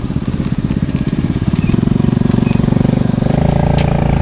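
Honda CT110 postie bike's small single-cylinder four-stroke engine running under throttle, its pitch stepping up twice as the revs climb.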